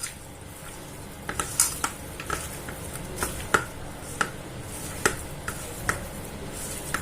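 A spoon stirring a thick spice marinade in a bowl, with irregular sharp clinks of metal against the bowl's side.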